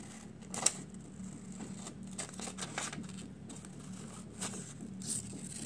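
A sheet of paper being handled, with scattered rustles and light taps and one sharper tap a little over half a second in, over a low steady hum.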